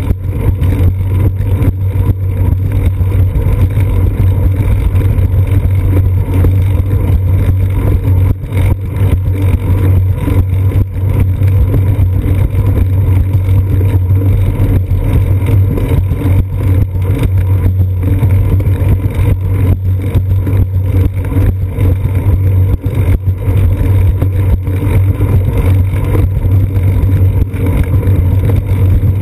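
Steady loud rumble of wind buffeting and road vibration picked up by a seat-post-mounted GoPro Hero 2 on a moving bicycle, with a constant low hum under it.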